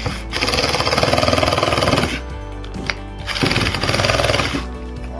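A small handheld power tool runs in two bursts with a fast buzzing rattle, the first about two seconds long and the second about a second, over background music.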